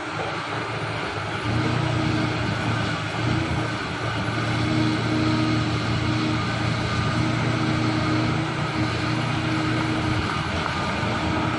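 Heavy diesel engine of mining machinery running steadily, with a low hum that grows a little louder about a second and a half in.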